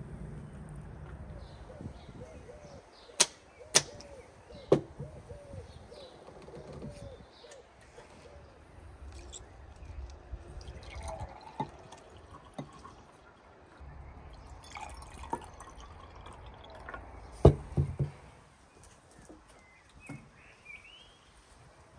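A few sharp clicks or clinks scattered through, the loudest about three to five seconds in and again about seventeen and a half seconds in, over a low steady background with occasional bird chirps.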